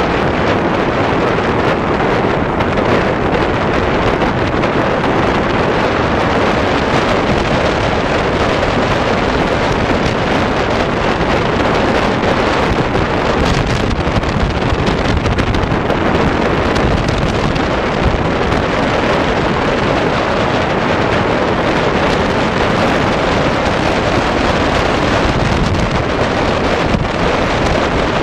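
Steady wind rush on the microphone of a camera riding on a moving motorcycle, with the bike's road and engine noise blended underneath.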